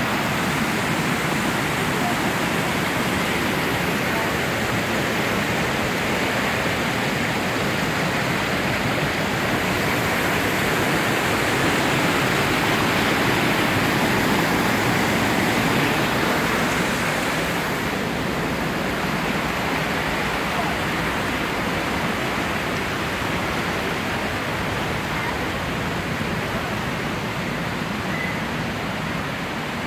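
Small waterfall with white water pouring over a stone ledge into a river, rushing steadily; slightly louder about halfway through and a little softer near the end.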